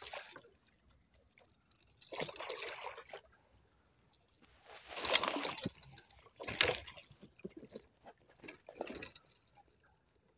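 Water splashing and a fish thrashing in five separate bursts as a hooked sembilang (eeltail catfish) is scooped from the water with a landing net.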